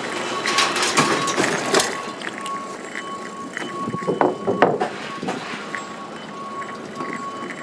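City bicycle rolling along, with rattles and clicks from the bike and wind on the microphone, and a thin high whine that comes and goes.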